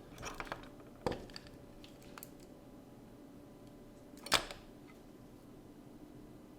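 Small handling clicks and taps from tweezers and hand tools at a microsoldering bench: a quick cluster at the start, a sharp click about a second in, and a louder click a little past four seconds, over a faint steady hum.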